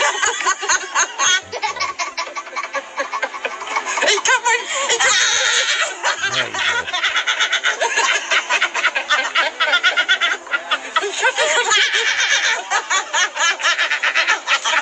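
A man and a woman laughing hard and continuously, their laughter shaken into a rapid flutter by the vibration plate they are sitting on.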